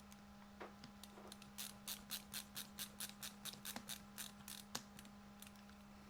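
A quick run of small mechanical clicks, about five a second for some three seconds, from hand assembly of small parts, over a steady low hum.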